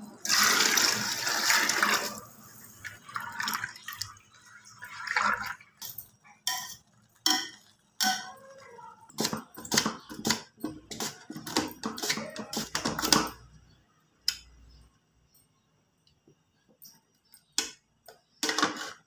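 About two seconds of water-like rushing over a pot of dal and meat, then a run of short scraping strokes as a cucumber is slid across a metal mandoline slicer, thickest in the middle, with a few more near the end.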